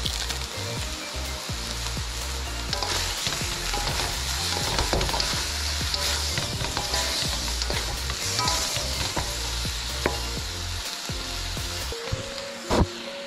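Shrimp and glass noodles sizzling in an aluminium wok while two wooden spatulas toss them, with frequent scraping and clicking of the spatulas against the pan. There is a single loud knock near the end.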